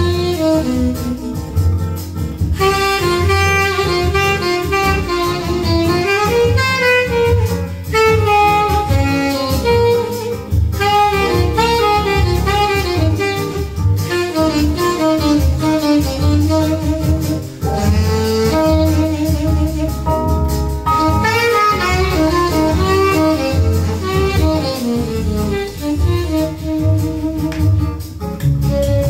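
Sonab OA14 loudspeakers playing jazz, a saxophone carrying the melody over a steady bass line.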